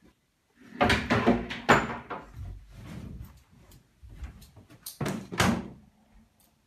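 Bumps and rustling of a desk chair and bedding being handled, in two louder clusters, about a second in and about five seconds in.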